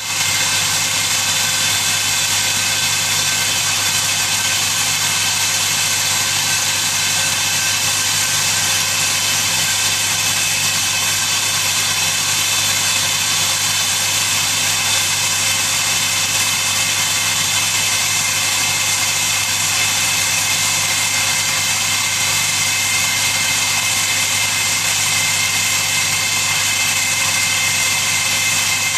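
Drilling rig's machinery running steadily: a constant low engine hum with a steady high-pitched whine over it, unchanging throughout.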